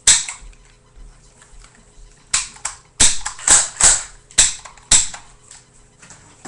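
Airsoft gun firing: about seven sharp snapping shots. The first comes right at the start, the next a little after two seconds, then five in quick succession between about three and five seconds in.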